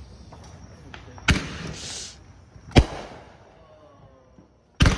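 Fireworks exploding: three sharp bangs about a second and a half to two seconds apart, the middle one the loudest, with a short hiss just after the first.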